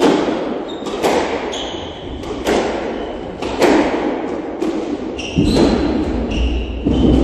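Squash rally: the ball cracking off rackets and the front wall about once a second, each hit echoing in the enclosed court, with short high squeaks of shoes on the wooden floor between the hits.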